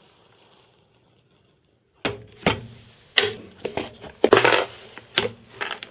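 Plastic bar clamps being taken off and set down, with a Perspex plate knocking on the wooden bench top: a run of sharp, irregular clacks and knocks starting about two seconds in.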